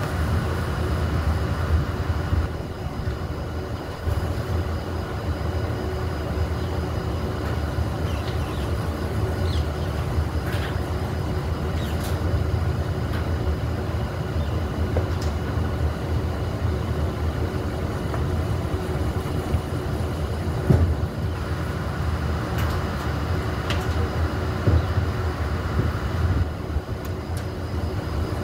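Steady machine hum from rooftop telecom and electrical equipment, with a low rumble and a few short knocks, the sharpest about two-thirds of the way through.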